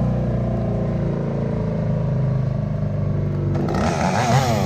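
Engine running steadily at a constant pitch. About three and a half seconds in, a second, higher engine sound joins, rising and falling in pitch as it revs.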